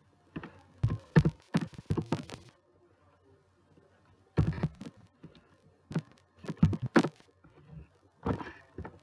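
Computer keyboard being typed on in short bursts of quick keystrokes, with pauses of a second or so between bursts.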